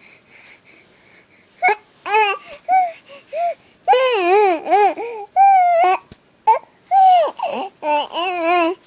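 Baby babbling and cooing in a string of high, wavering squeals and coos. The sounds start about two seconds in, with short pauses between them.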